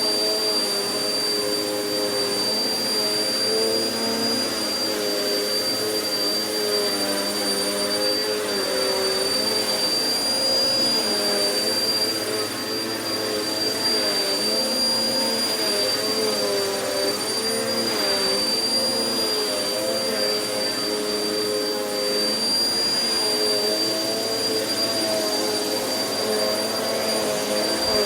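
Vacuum cleaner running over carpet: a steady high motor whine over rushing air, with a lower hum whose pitch wavers up and down as the airflow changes under the moving nozzle.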